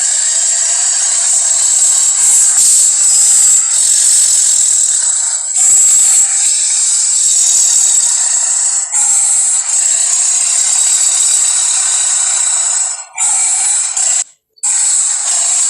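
Harsh, hissing monster roar or growl sound effect, built from animal recordings, with the bass cut away. It runs on in long stretches, broken by short pauses about 5.5, 9 and 13 seconds in and a brief silence near the end.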